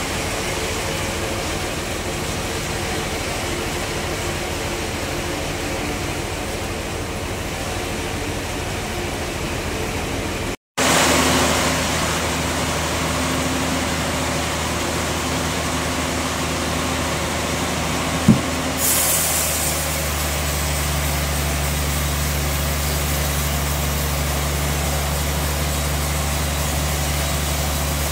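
Steady outdoor background hum; then, after a cut, the sawmill's bandsaw machinery running steadily with a low engine hum. A single sharp knock comes about 18 seconds in, and a high hiss joins just after.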